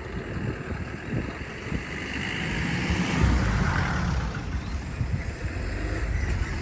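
A vehicle passing close by: a low rumble with some tyre or wheel hiss that builds to its loudest a little past three seconds in, then stays steady.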